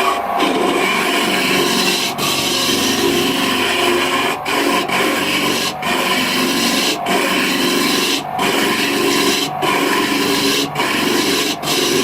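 Wood being worked with an abrasive tool in a continuous scratchy rubbing, broken by short pauses roughly every second as each stroke ends and the next begins.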